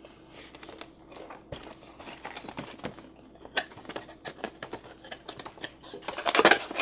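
A cardboard LEGO set box being opened by hand: a run of small scrapes, taps and card-on-card rubbing as the end flap is pried up, then a much louder crinkling rustle near the end.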